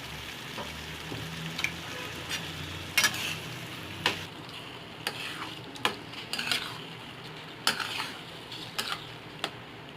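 Pav bhaji vegetable mash sizzling in butter and oil in a pan while being stirred, a spoon scraping and knocking against the pan about once a second. The sizzle quietens about four seconds in.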